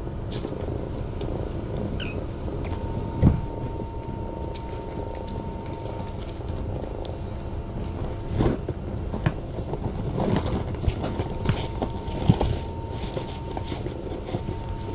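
Kittens playing and scuffling on a padded floor: a single thump about three seconds in, another a little past eight seconds, and a scatter of light knocks and scuffles in the second half, over a steady low hum.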